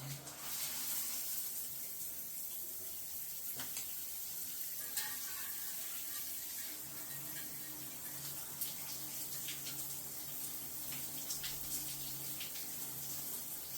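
Shower head running steadily at full pressure, water spraying with an even hiss and a few faint splashes, a sign that the shower side of the mixer is working properly.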